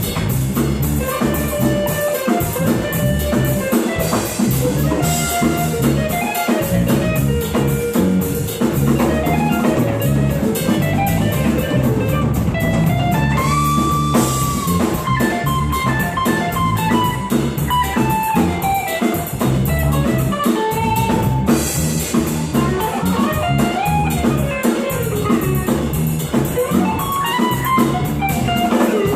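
Live band playing an instrumental passage: melodic guitar lines that bend and glide in pitch, over a drum kit.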